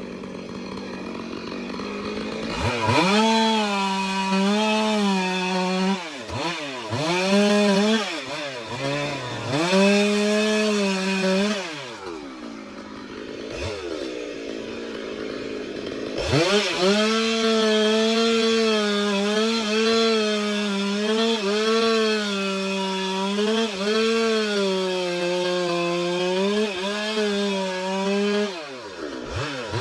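Stihl chainsaw cutting a log at full throttle, its pitch wavering and dipping under load. It drops back to idle about twelve seconds in, then makes a long steady cut before falling back to idle near the end.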